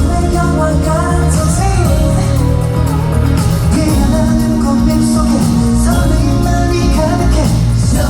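K-pop boy group singing live over a loud pop backing track with a steady bass beat, played through a concert sound system.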